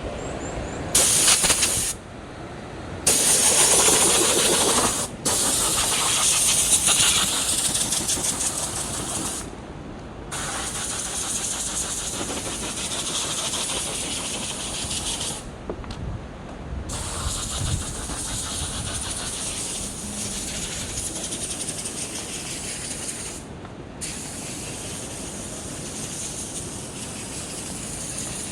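Mountain stream water rushing over rocks as a steady, loud hiss, broken by several abrupt cuts and jumps in level.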